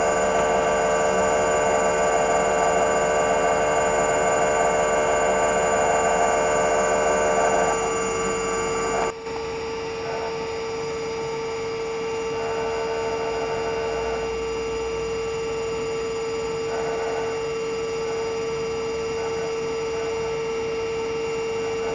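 Spray dryer machinery running: a steady hum with a constant whining tone over it. The sound drops in level and changes character about nine seconds in.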